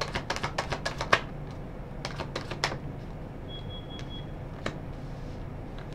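Oracle cards being shuffled and handled by hand: a quick run of light clicks in the first second, then a few scattered clicks.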